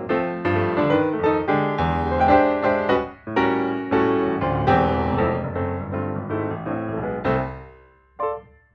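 Background piano music, a busy run of notes that dies away near the end.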